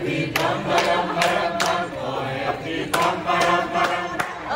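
A group of restaurant staff singing a birthday song together in a chant-like chorus, clapping in time.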